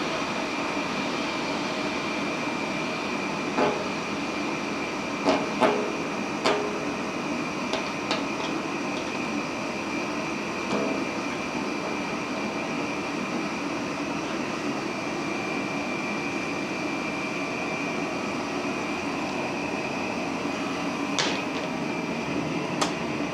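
Steady rushing noise of a running gas forge and a quench tank's recirculating pump jetting water, with a faint high steady tone through it. A few sharp metallic knocks cut in, several within the first seven seconds and one near the end.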